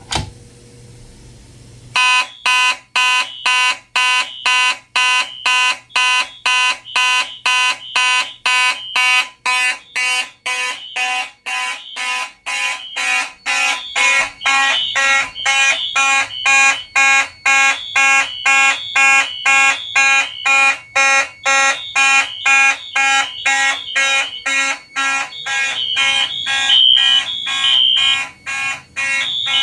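A sharp click from a Simplex T-bar pull station being pulled. About two seconds later a set of fire alarm horns starts sounding together: the Simplex horns pulse in march time, about two blasts a second, and other horns sound over them on the temporal code-3 pattern of three blasts and a pause.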